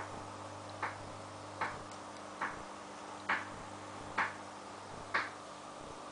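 Clown loaches clicking while feeding: seven short, sharp clicks a little under a second apart, the later ones slightly louder.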